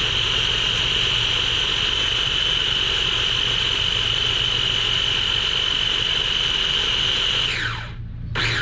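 Countertop blender motor running steadily with a high whine as it purees frozen fruit and almond milk, then winding down and stopping near the end.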